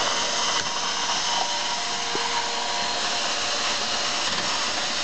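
Cordless drill running steadily, spinning the ceramic burrs of a Hario hand coffee grinder through a socket on its shaft nut, grinding coffee beans.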